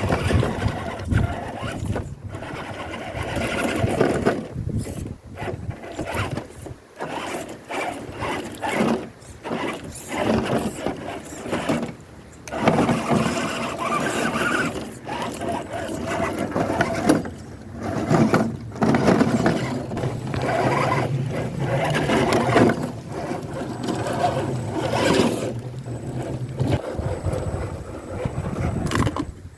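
The 64-turn brushed motor and gearbox of a 1/10 RC rock crawler whining in short stop-start bursts, rising and falling in pitch as the throttle is worked on and off.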